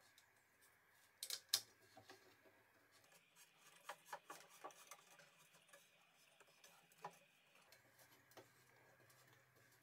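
Faint clicks and ticks of a hex key turning a confirmat screw that draws two wooden rods together at a fish mouth joint. There are two sharper clicks a little over a second in, then a run of light irregular ticks.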